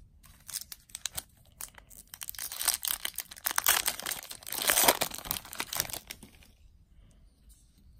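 Foil wrapper of a Magic: The Gathering booster pack being torn open and crinkled by hand. The crackling is loudest in the middle few seconds and dies away near the end.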